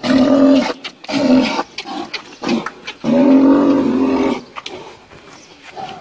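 Large bull bellowing while being led on nose ropes: two short calls in the first second and a half, then a long, loud one about three seconds in.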